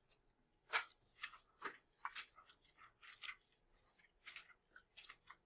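Sheets of paper being handled and slid into place on a desk: a series of faint, short, irregular rustles and taps.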